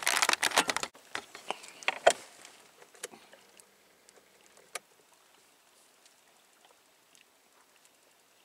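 Handling noise of the camera being turned around in a small boat: a burst of clicks and knocks in the first second, then a few scattered sharp clicks over the next few seconds before it goes nearly quiet.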